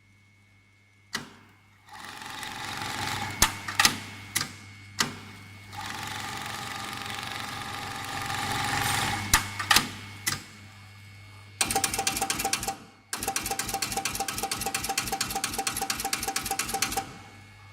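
JYL-DF6050 automatic button-attaching industrial sewing machine with a direct-drive motor. A steady motor hum gives way to whirring broken by sharp clicks of the mechanism. After about twelve seconds come two runs of fast, even needle strokes as it stitches, with a short pause between them.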